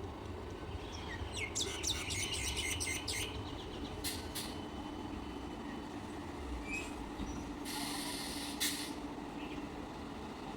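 Background of road traffic rumbling steadily, with a quick run of bird chirps for a couple of seconds near the start, two short sharp sounds a little after, and a hiss lasting about a second past the middle.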